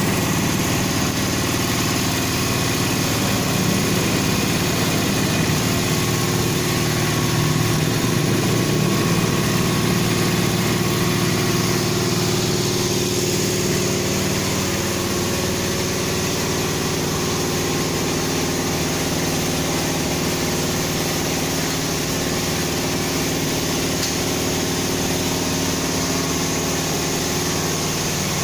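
Diesel engine of a Hino Dutro water tanker truck running steadily at idle while the truck delivers water through its hose.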